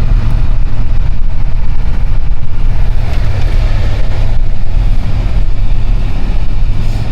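Vehicle driving through deep snow, heard from inside: a loud, steady low rumble of engine and road noise.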